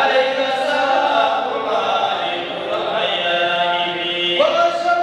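Men chanting an unaccompanied devotional Mawlid poem in praise of the Prophet Muhammad, the lead voice holding long melodic notes. A new phrase starts about four seconds in.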